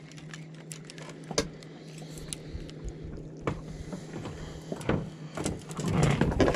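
Irregular clicks and knocks of a fishing rod and tackle being handled aboard a small boat, over a steady low hum, with a louder run of knocks and rustling near the end.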